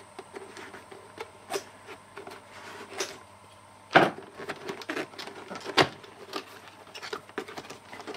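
Scissors snipping the seal of a small cardboard CPU retail box, then the box being handled and opened: irregular clicks, taps and cardboard scrapes, the loudest two knocks against the wooden tabletop about four and six seconds in.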